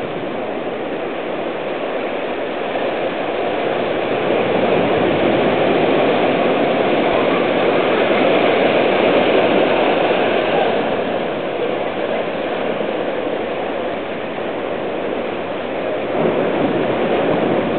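Ocean surf: waves washing in and breaking as a steady rush, swelling louder a few seconds in and again near the end.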